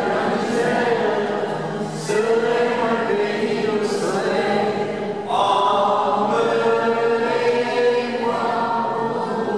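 A man singing a French chanson, accompanying himself on a steel-string acoustic guitar, in long held phrases that grow louder about halfway through.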